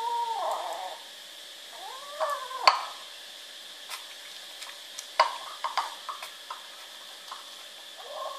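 Kittens squabbling over a food bowl: a drawn-out, arching kitten cry at the start, another about two seconds in that ends in a sharp knock, then a run of lighter clicks and knocks from the ceramic bowl on the tile floor, and a short cry again near the end.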